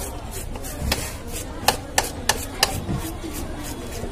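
A blade scraping the scales off a bighead carp: a string of short, sharp scraping strokes, irregularly spaced and several a second at times.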